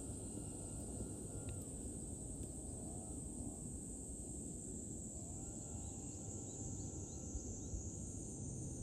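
Outdoor ambience dominated by a steady high-pitched insect chorus, over low background noise, with a few faint chirps toward the end.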